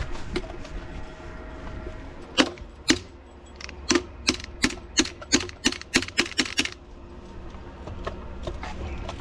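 A run of sharp clicks or taps, about three a second for a few seconds, after two single clicks, over a low steady rumble.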